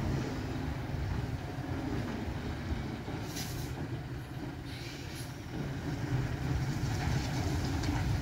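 Diesel engine of a heavily loaded ten-wheel lorry running at low speed round a tight bend: a steady low rumble, with a brief hiss about three seconds in.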